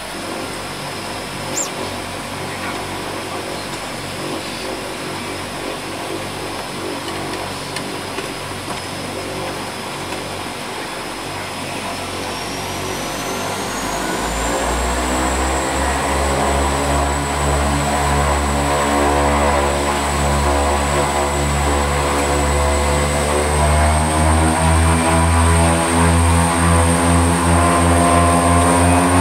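Twin Otter's two Pratt & Whitney PT6A turboprop engines heard from inside the cabin, running with a steady turbine whine over a propeller drone. About halfway through, the whine rises in pitch and the propeller drone grows louder and deeper as power is brought up on the overhead levers.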